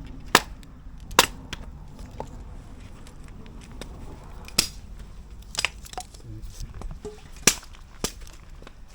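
Wood fire crackling and popping: several loud, sharp cracks at irregular intervals among many smaller ticks, over a low steady rumble.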